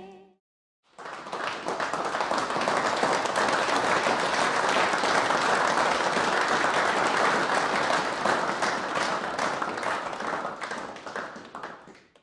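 The last note of a song fades out, then a crowd applauds from about a second in, dying away near the end.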